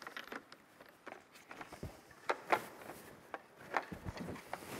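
Footsteps on a hard floor, with scattered small knocks and clicks.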